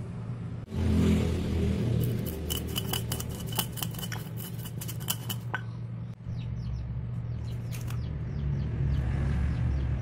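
Stone pestle (ulekan) clicking and tapping against a stone mortar (cobek) and the whole spice seeds in it. Quick runs of sharp clicks come between about two and five seconds in, with a few more near the end, over a steady low rumble.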